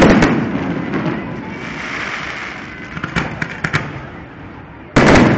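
Fireworks going off: a loud bang at the start that fades away, a run of sharp crackling pops about three seconds in, then another loud bang near the end.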